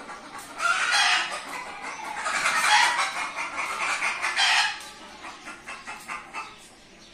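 Chickens calling loudly: one short call about half a second in, then a longer run of broken calls from about two seconds in until nearly five seconds in.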